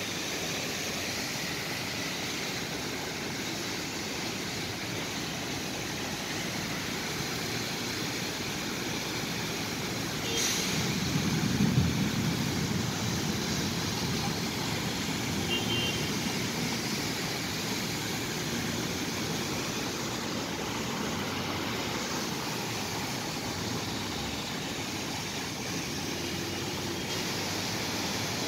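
Traffic driving through floodwater in the rain: a steady rush of water and tyre spray. One vehicle's engine swells louder as it passes, about ten to thirteen seconds in.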